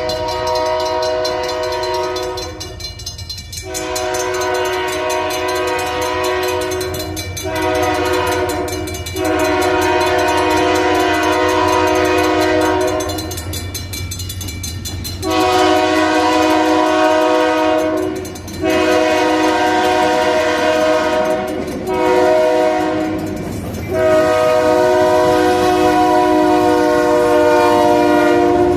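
Freight locomotive's multi-chime air horn blowing the grade-crossing signal twice: long, long, short, long, with a pause between the two sequences. Under the horn runs the steady low rumble of the slow-moving diesel locomotive and its train.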